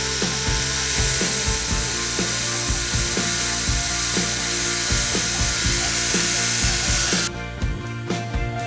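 A power tool working wood with a steady rushing noise that cuts off suddenly about seven seconds in, over background music with a steady beat.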